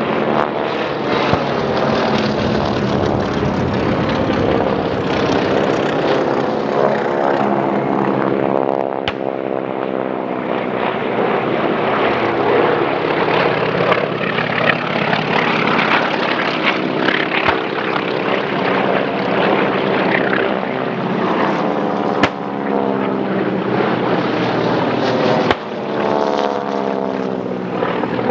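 Several radial-engined propeller warplanes flying low passes, engines running loud and steady, their pitch dropping as each one goes by. A few short sharp cracks sound through the engine noise.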